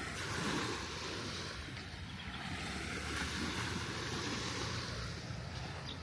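Small waves washing onto a sandy beach in a steady, even wash, with wind rumbling on the microphone.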